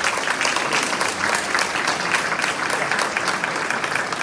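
Small audience applauding with a steady patter of hand claps.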